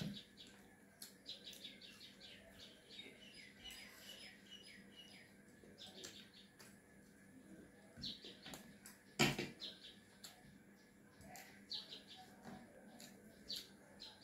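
Quiet wet chewing and lip-smacking of a person eating with the fingers: a string of short clicks and smacks, with one sharper click about nine seconds in.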